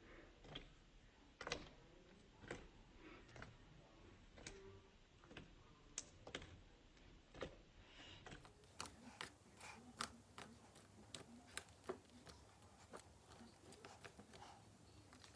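Slime being poked and squished by fingers: a faint run of small, irregular clicks and pops, coming faster after about eight seconds in.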